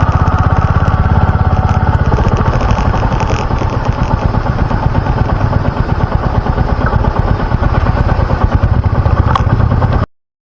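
Royal Enfield 350 single-cylinder motorcycle engine running, a loud, steady stream of rapid even pulses, which cuts off abruptly near the end.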